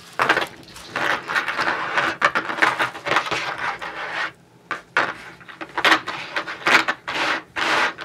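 Tissue paper rustling as a gold-tone chain-link necklace is unwrapped from it, then the metal links rubbing and clinking as the necklace is handled and laid flat on a tabletop, in irregular strokes with brief pauses.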